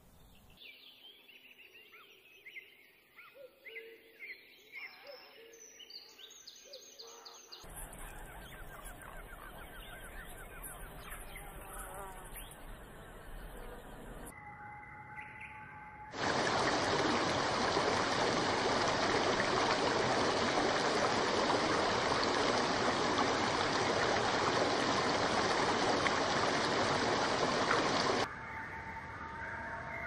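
Wild birds chirping and whistling in short rising and falling phrases, with a high steady hiss behind them for a few seconds in the middle. Then a loud, steady rushing noise takes over for about twelve seconds and cuts off abruptly, after which birdsong returns faintly.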